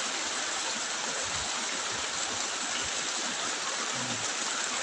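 Steady, even rush of flowing water from a stream.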